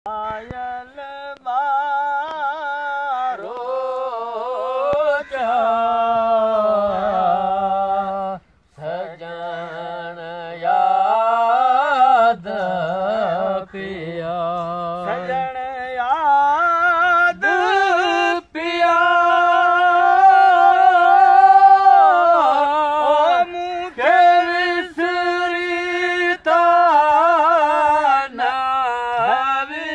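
Men singing a traditional Sindhi folk song unaccompanied, in long held, wavering notes with sliding ornaments, broken by short pauses for breath.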